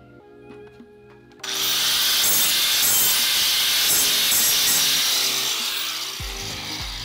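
Angle grinder cutting into aluminum plate. It starts suddenly about a second and a half in, runs loud and steady for about four seconds, then dies away.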